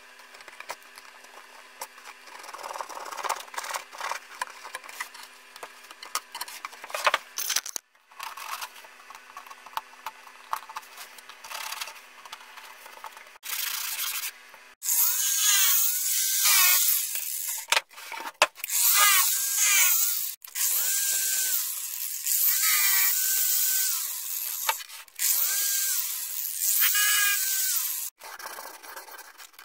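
Plywood rubbing and scraping against plywood in repeated strokes of a second or two, with squeaky rises and falls in pitch, as the parts of a homemade plywood trunnion are worked by hand; the first half holds quieter clattering and handling with a faint steady hum.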